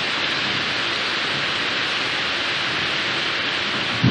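Heavy rain falling steadily during a thunderstorm, a constant even hiss.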